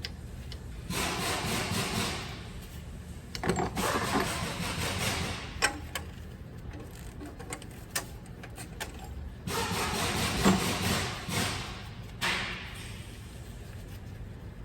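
Mack MP8 common-rail diesel engine cranked by its starter in four short bursts. This is the hard starting that the owner puts down to leaking fuel injectors.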